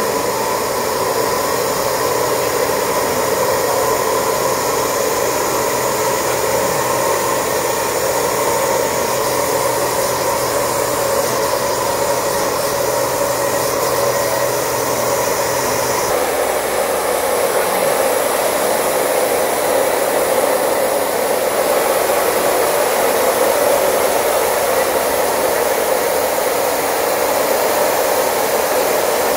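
Compressed air rushing steadily through an inflation hose into a rubber ship-launching airbag, a loud even hiss. The tone shifts slightly about sixteen seconds in.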